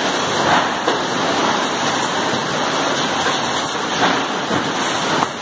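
Steady, loud rushing noise of an 8-head oil filling machine running, with a few faint clicks as the heads finish their fill and the valves lift.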